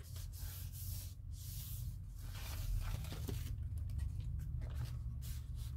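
A journal page rubbed down by hand on a gel printing plate and then peeled off the tacky acrylic paint: soft rustling and swishing of paper, over a low steady hum.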